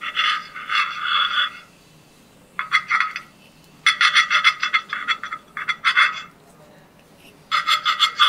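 Serrated bread knife sawing through a slice of whole wheat bread, cutting a circle out of it. The knife makes quick rasping strokes in five short bursts with brief pauses between.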